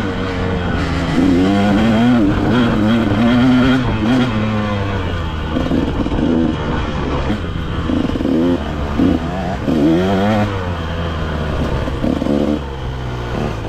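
Dirt bike engine heard from on the bike, its pitch rising and falling again and again as the throttle is opened and closed.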